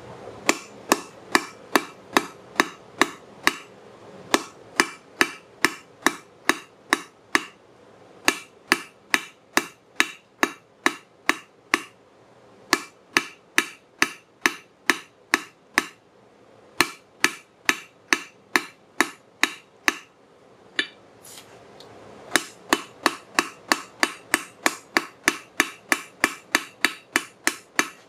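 A hand hammer forging a red-hot railroad spike on a steel anvil, struck in a steady rhythm of about two to three blows a second. Each blow rings. The hammering stops briefly a few times, the longest pause lasting about two seconds, about three-quarters of the way through.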